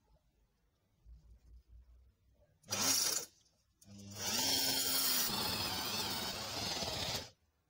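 Electric drill running in a short burst, then running for about three seconds as it turns a homemade steel-rod auger boring into soil, its motor pitch rising and then sagging before it cuts off suddenly.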